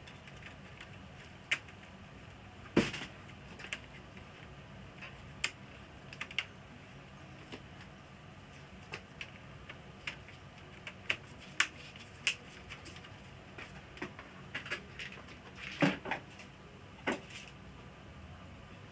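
Irregular small clicks and knocks of parts and tools being handled while an LCD TV is taken apart, with two louder knocks, one about three seconds in and one near the end.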